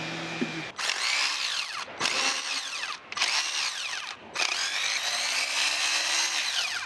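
Cordless power driver running in four bursts, the last one longest, its motor whine sweeping in pitch as it spins out bolts on the automatic transmission's exposed valve body.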